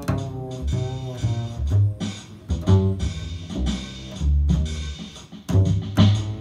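Upright double bass played pizzicato, plucked with the fingers in a steady run of low notes through a blues.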